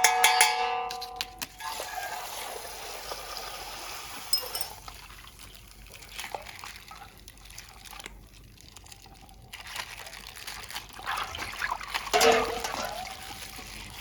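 Coloured water pouring and trickling out of an opened plastic bag, with scattered crackly clicks of the plastic being handled.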